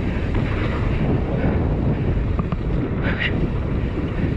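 Wind buffeting the action camera's microphone while riding a mountain bike down a dirt singletrack, with a steady low rumble of tyres and bike over the trail. There is a brief higher rasp about three seconds in.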